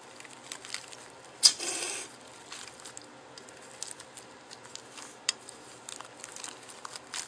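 Hands rolling a fresh spring roll in softened rice paper on a plate: soft, sticky squishing and crinkling with scattered light clicks, and a louder rustle about one and a half seconds in.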